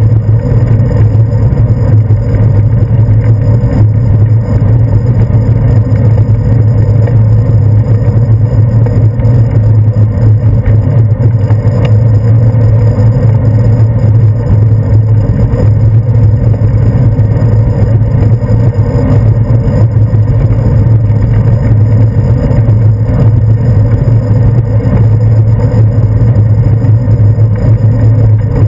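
Steady low rumble of wind and road vibration, picked up by a handlebar-mounted action camera in its housing as the bicycle rolls along.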